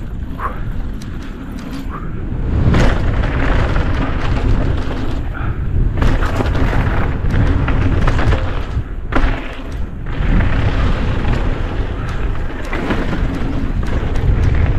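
Heavy wind buffeting on the microphone with the rumble and clatter of a downhill mountain bike running over rough trail.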